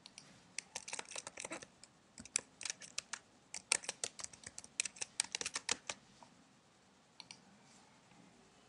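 Computer keyboard being typed on, a run of quick keystrokes entering a login name and password, stopping about six seconds in; a couple of lighter single clicks follow near the end.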